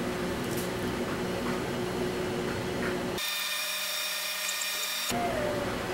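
12-volt fan of a homemade ice-chest air conditioner running steadily, blowing air through a PVC outlet pipe. About three seconds in, the hum gives way for about two seconds to a high-pitched whine, then returns.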